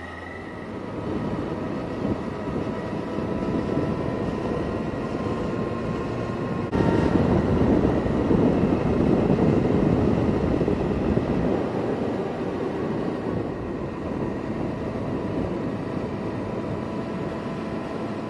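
Motorcycle on the move: engine running under a rush of wind on the microphone, building up over the first seconds and jumping louder suddenly about seven seconds in.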